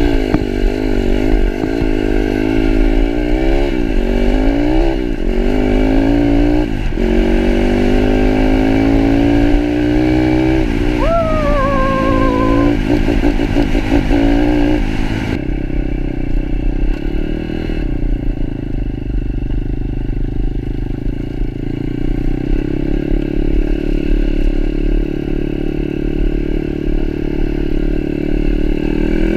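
Pitster Pro 160cc pit bike's single-cylinder four-stroke engine under way. In the first half it revs up and drops back several times as it shifts up through the gears, with one long climb in pitch. From about halfway it settles into a steadier, duller running sound.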